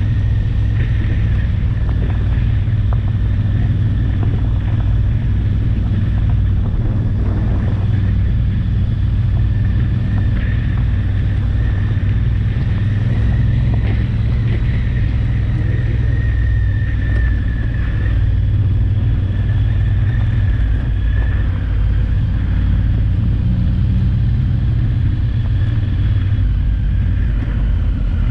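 Twin-cylinder adventure motorcycle heard onboard while riding: a steady low engine rumble, with a thin high whine above it that wavers slightly in pitch.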